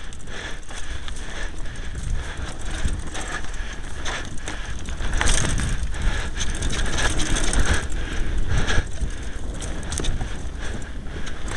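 2012 Kona Blast hardtail mountain bike rattling over a rough dirt singletrack at speed, with irregular knocks from bumps in the trail. A steady low rumble of wind hits the bike-mounted camera's microphone.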